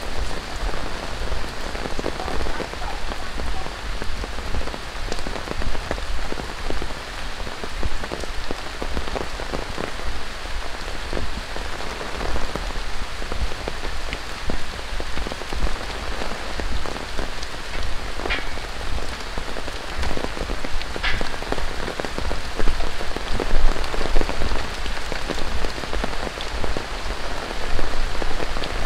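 Steady rain falling, with many individual drops striking surfaces close by.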